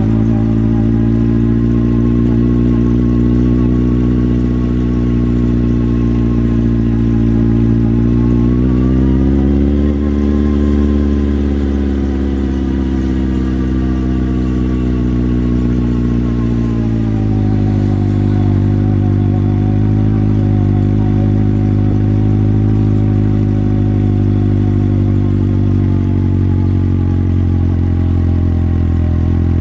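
Motorcycle engine running under way, heard from on the bike. Its pitch rises about a third of the way in, holds, then drops back a little past the middle and runs steadily again.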